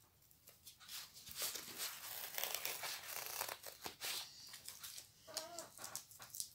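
Plastic wrapping crinkling, rustling and tearing as it is peeled and unrolled off a rolled canvas, in an irregular run of crackles.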